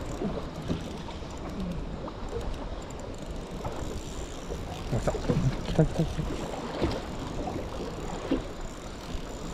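Wind and water noise aboard a small fishing boat, with a few light knocks about five to six seconds in.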